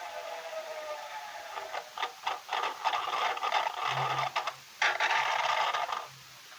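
Washing machine drum noise picked up by a keypad phone inside the drum on the spin cycle: a faint falling whine, then irregular rattling and scraping with loud stretches and a low pulsing hum, dropping off sharply about six seconds in.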